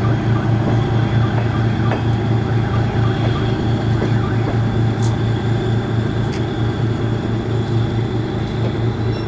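DR1A diesel multiple unit's diesel engine running with a deep, steady, pulsing drone as the train pulls away, fading slightly near the end.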